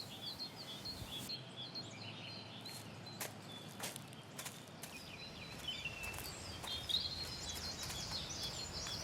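Small birds chirping and twittering in the background, many short high calls scattered throughout, over a faint outdoor hiss with a few soft clicks.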